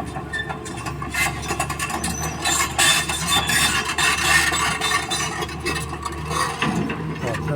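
Long-boom Sany excavator's diesel engine running steadily. Over it comes a clatter of rattling and scraping, loudest in the middle, as the machine works the well.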